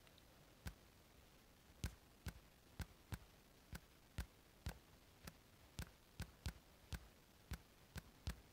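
Faint key-tap clicks from a smartphone's on-screen keyboard, one per letter as a word is typed, about sixteen at an uneven pace of roughly two a second.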